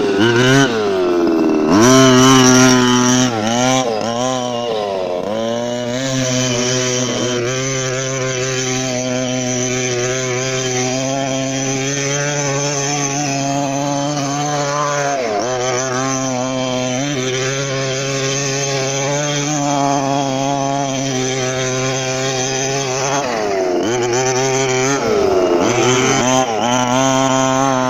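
Small two-stroke petrol engine of a 1/5-scale RC monster truck running hard under throttle. Its pitch drops and climbs sharply several times as the throttle is chopped and reopened, most of all early on and near the end. In between it holds a fairly steady high rev while the truck drives.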